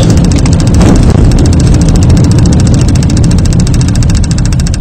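A vehicle's engine and tyres are running at low speed on a wet road, heard from inside the cab as a loud, steady low rumble.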